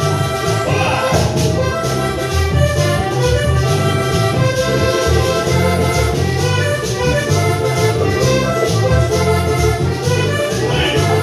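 Instrumental Latin dance music with a keyed melody line over a strong, evenly pulsing bass, played loud.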